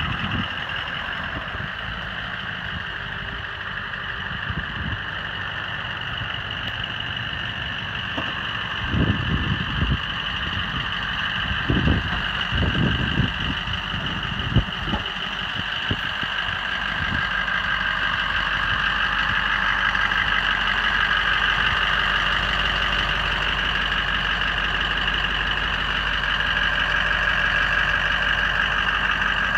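Ford F-550 Super Duty truck engine idling steadily, with a few low thumps near the middle.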